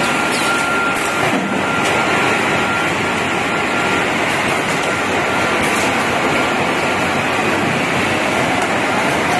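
Receipt paper roll production machine running: a loud, steady mechanical noise with a faint thin tone over it.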